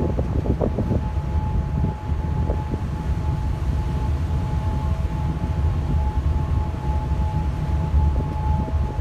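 Wind buffeting the microphone on an open ferry deck over the low rumble of the ship's engines, with a faint steady high whine.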